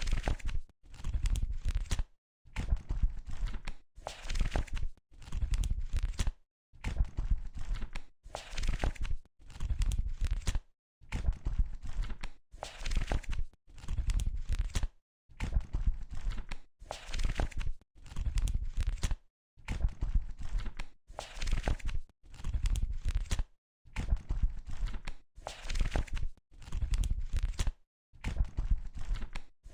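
Paper pages of a book being flipped one after another, a rustling that comes in repeated short runs with brief pauses between them.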